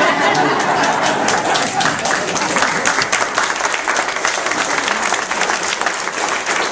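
Audience applauding, many hands clapping in a dense, steady patter, with a few voices mixed in near the start.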